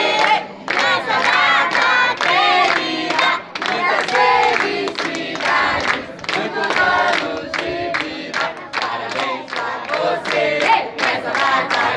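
A crowd of adults and children singing a birthday song together, with steady rhythmic hand-clapping.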